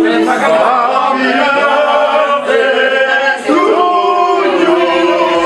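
A group of people singing together without instruments, on long held notes.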